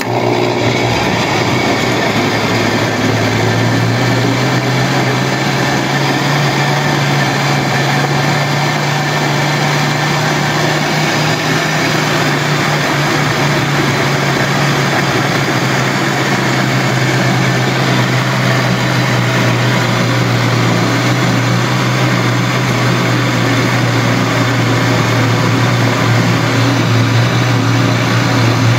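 Philco countertop blender switching on and running steadily, its motor pureeing a full jar of whole blackberries with a little water. The hum settles slightly lower in pitch about twelve seconds in.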